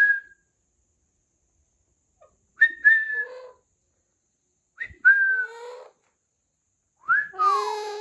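Young Alexandrine parakeet whistling on request: four short calls about two seconds apart. Each call is a high, steady whistle note that drops into a lower, rougher squawk.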